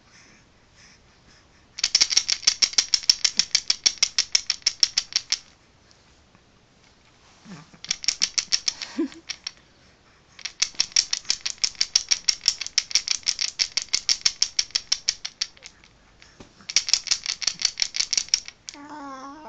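Wooden ring baby rattle with coloured beads shaken in four quick bursts, the beads clicking about eight times a second. Near the end there is a short baby's coo.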